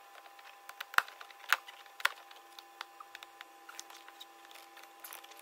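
Scattered sharp clicks and light knocks of a rubber coolant hose and its pinch-style clip being worked loose by hand from the heater pipe, the loudest about one, one and a half and two seconds in.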